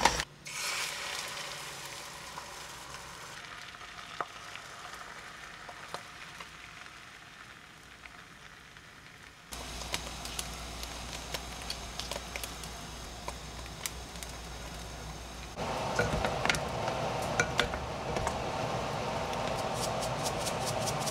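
A pot of water coming to the boil on an electric hob: a steady hiss and bubbling that grows louder in the last few seconds as the soup boils. Near the end, quick light clicks as salt and pepper are shaken in.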